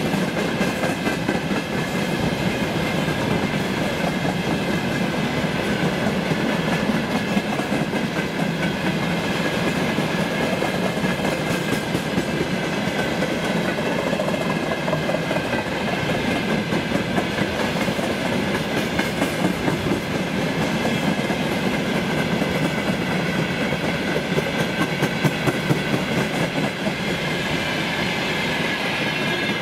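Freight train of railway tank cars rolling past close by: steady rumble of steel wheels on the rails with a clickety-clack as the wheelsets cross rail joints.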